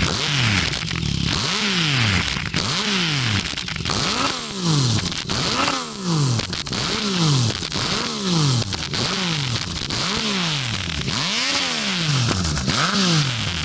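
Yamaha MT-09's three-cylinder engine revved through an Arrow aftermarket exhaust, heard close to the silencer outlet. The throttle is blipped about once a second, each rev rising quickly and falling back toward idle.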